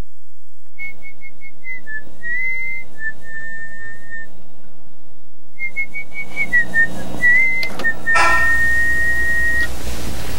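Someone whistling a short tune in two phrases of clear notes with small slides between them. About eight seconds in, music comes in with a loud struck note, and the whistle holds one long note over it.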